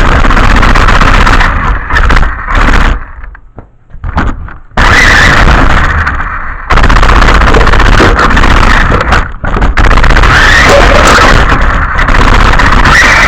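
A radio-controlled car driving, its motor whine rising in pitch as it speeds up, under loud distorted rumbling noise. The noise drops away for a couple of seconds about three seconds in.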